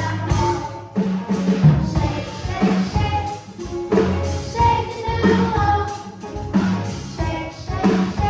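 Children's gospel choir singing with a band, a drum kit keeping a steady beat under a moving bass line.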